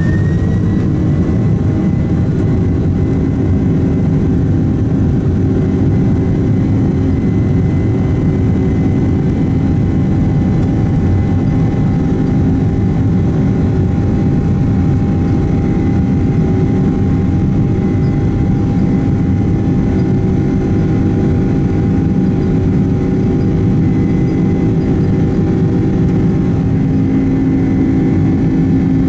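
Boeing 767's General Electric CF6 turbofan engines heard loudly from inside the cabin just ahead of the engine. A steady roar carries a whine that rises and levels off about a second in, then holds steady.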